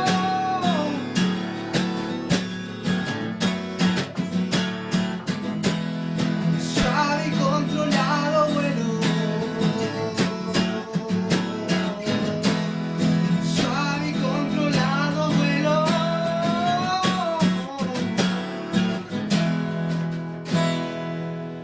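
Acoustic guitar strummed steadily, with a singing voice carrying a melody over it in the middle stretch.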